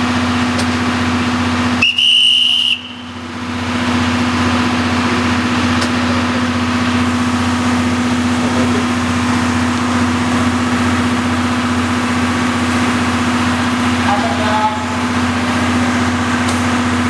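JR West DD51 diesel-hydraulic locomotive idling at a standstill with a steady hum. About two seconds in comes one short, loud, high whistle blast.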